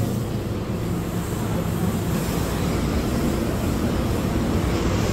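Steady low rumble and hum inside a passenger train car stopped at a station platform.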